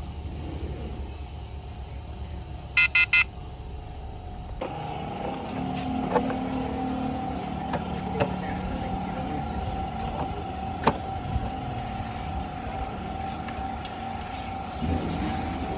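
Steady mechanical hum, with three quick electronic beeps about three seconds in and a few sharp clicks later on.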